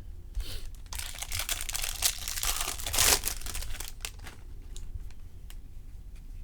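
Crinkling and tearing of a trading card pack's foil wrapper as it is ripped open, the crackle loudest about three seconds in, followed by a few light clicks.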